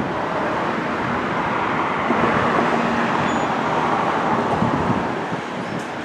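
Steady road-traffic noise that swells for a few seconds from about two seconds in, as a vehicle passes close by, then eases again.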